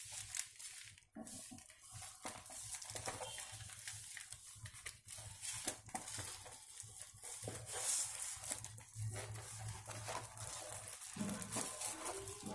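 Crinkling of clear plastic wrap and rustling of packaging as baby-care items are handled and lifted out of a moulded gift-set tray, with small irregular clicks and taps of items being moved.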